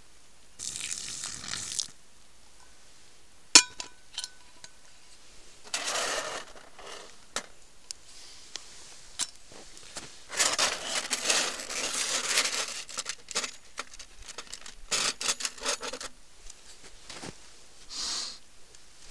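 Handling sounds: several bursts of rustling and scraping, one to two and a half seconds each, with one sharp clink about three and a half seconds in that rings briefly.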